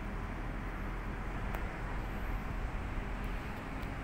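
Steady low rumble and hiss of outdoor background noise, with a faint click about one and a half seconds in.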